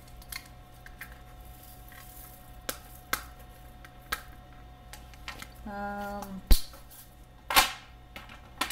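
Light handling of diamond painting drills and their packaging: scattered small clicks and taps, a brief low hum about two-thirds through, then a sharp knock, the loudest sound, followed by a short rustle. A steady electrical hum runs underneath.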